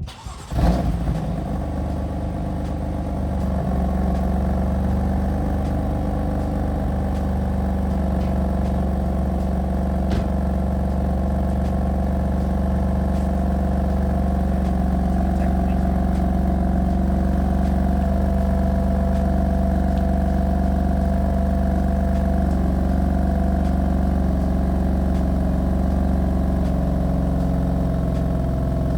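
BMW F80 M3's S55 twin-turbo inline-six starting up through an Active Autowerke single mid pipe with the catalytic converters and resonator deleted: a sudden flare about half a second in, then a steady idle in comfort mode.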